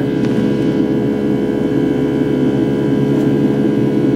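Steady drone of a Boeing 757-300's Rolls-Royce jet engines, heard inside the passenger cabin in cruise, with several steady hum tones over it. A nervous flyer aboard calls the engine abnormally noisy, saying it sounds like a propeller plane.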